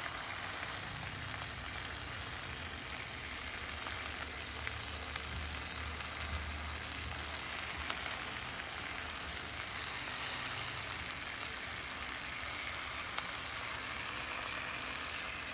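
Steady sizzling of coconut milk cooking under a whole fish on a banana leaf in a frying pan, with a few faint pops.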